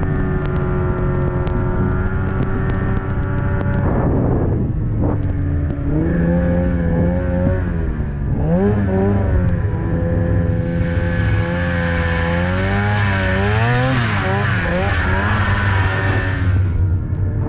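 Snowmobile engine running under way, its pitch rising and falling as the throttle opens and eases off. A rushing hiss joins it for several seconds in the second half.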